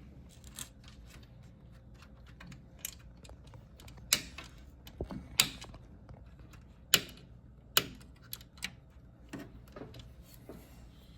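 Irregular sharp clicks and clacks of hard computer parts being handled, a few of them louder than the rest.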